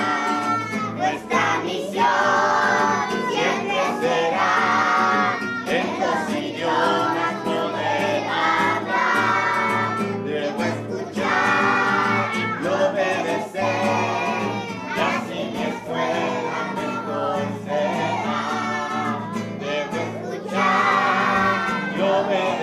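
A group of children singing a song in Spanish together, accompanied by a guitar.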